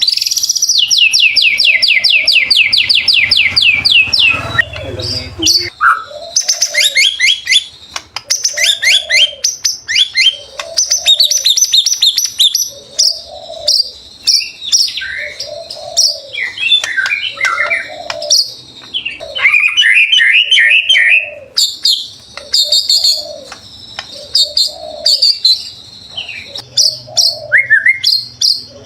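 White-rumped shama (murai batu) in full song: a fast trill of rapidly repeated descending notes opens, followed by a varied run of loud whistles, chirps and rattling phrases. After the trill, a low cooing note repeats about once a second in the background.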